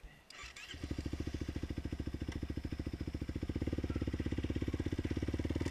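A 450 ATV's single-cylinder engine is restarted after stalling. It cranks briefly, catches under a second in, and settles into an even, rapidly pulsing idle that slowly grows louder.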